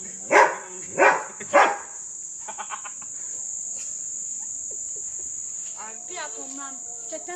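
Crickets chirring in one steady high-pitched note. Three loud short barks or shouts come in the first two seconds, and a voice near the end.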